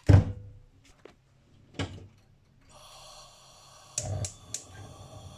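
Frying pan knocking twice on a gas stove's grate, then a gas burner hissing steadily from about halfway, with a few sharp clicks as the burner is lit to heat the oil in the pan.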